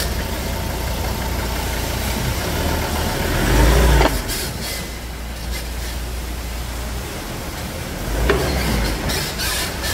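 Ford Ranger 3.2's engine idling while the front wheels are steered, with creaking from the front suspension: a creak rising in pitch about four seconds in and a sharp creak a little after eight seconds.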